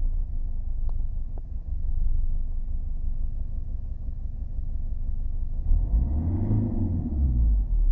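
Mercedes-Benz W210 E220 CDI four-cylinder diesel idling with an uneven, rough low rumble, the intermittent rough idle whose cause the owner has not found. About six seconds in, the engine note briefly rises and falls.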